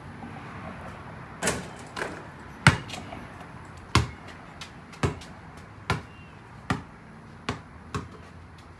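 A series of about nine sharp thuds, coming irregularly at roughly one a second, over a faint steady hiss.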